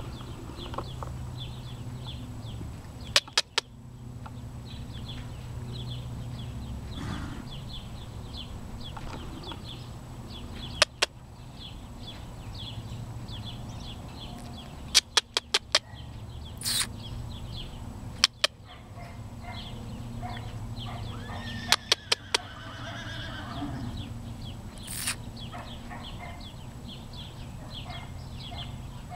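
A horse whinnying, a curving call about three-quarters of the way through, over a steady low hum. Several short clusters of loud sharp clicks are scattered through.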